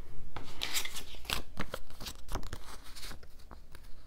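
Paper sticker sheets handled over a spiral planner: a string of short rustles and light clicks with brief scraping strokes, the loudest between about half a second and two and a half seconds in.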